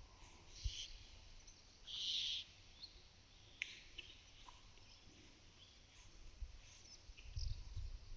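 Cows licking a mineral salt block with short, soft rasping strokes, among faint calls of small birds. There is a low thump about a second in and a few more near the end.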